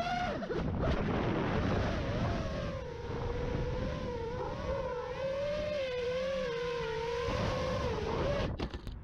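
FPV quadcopter's motors and propellers whining in flight, the pitch wavering up and down with the throttle, heard from the camera on board. The whine stops near the end.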